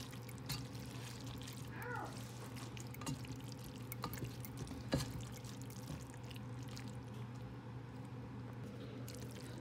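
Spaghetti in chili sauce being stirred with a silicone spatula: wet squelching and sloshing, with a few sharp clicks of the spatula against the pot, the loudest about five seconds in, over a steady low hum.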